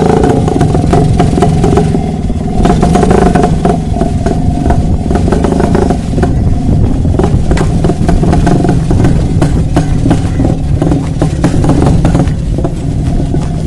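A 1975 Rajdoot motorcycle's two-stroke single-cylinder engine running as the bike is ridden, with a rough, clattery note.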